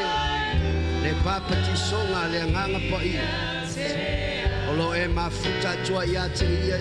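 Live gospel worship song: singers with microphones over instrumental backing with held bass notes.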